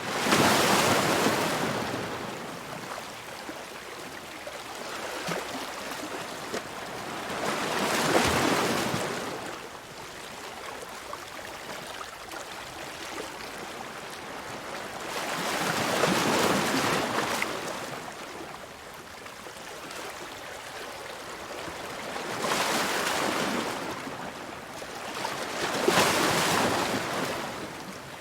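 Ocean waves breaking in repeated surges, five times over several seconds apart, with a steady wash of water between them.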